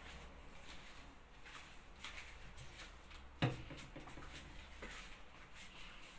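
Faint footsteps with small clicks and rustles, and one sharp knock about three and a half seconds in.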